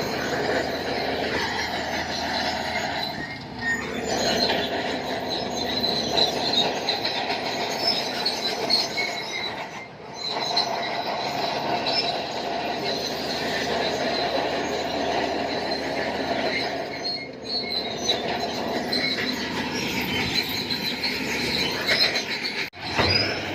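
Shantui crawler bulldozer working, its steel tracks squealing and clanking over the running diesel engine, with the squeal sliding in pitch a couple of times.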